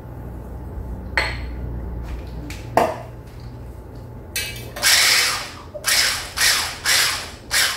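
Two knocks, then an immersion blender whipping egg whites in a tall stainless steel cup, switched on and off in repeated short runs starting a little past halfway.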